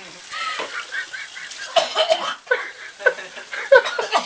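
Short, cackling vocal bursts from people reacting to the burn of just-eaten habanero peppers: laughter mixed with yelps, in quick fits that crowd together toward the end.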